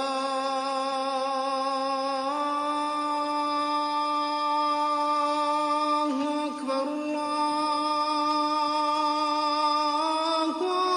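A single voice chanting one long held note, stepping slightly up in pitch about two seconds in and again near the end.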